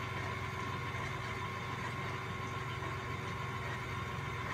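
KitchenAid stand mixer's electric motor running at a steady speed, beating heavy whipping cream on its way to butter.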